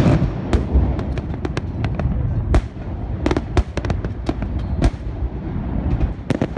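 Festive salute fireworks bursting and crackling overhead: an irregular string of sharp pops and bangs, several a second, over a continuous low rumble.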